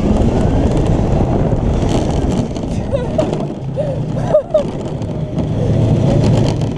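Sky Dragster ride car running along its track: a steady rumbling rush of wheels and wind. A few short squeals come between about three and four and a half seconds in.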